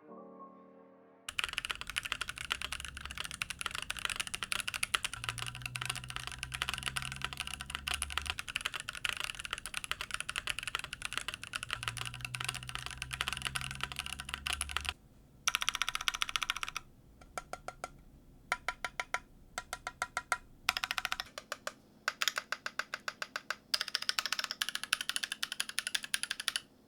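Ajazz AC081 CNC-aluminium gasket-mount mechanical keyboard being typed on: a dense run of fast keystrokes, then short bursts and spaced single key presses in the second half. The board has the force-break tape mod fitted, and its case ping is much reduced.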